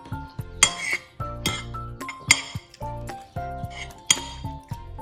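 Cutlery clinking against a plate during a meal, with a few sharp clinks about a second apart. Background music with a steady beat plays underneath.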